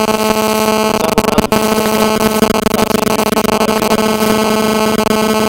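Loud, steady electronic buzz: a pitched hum with many overtones over a hiss, drowning out the lecture audio, typical of interference or a glitch in the recording chain.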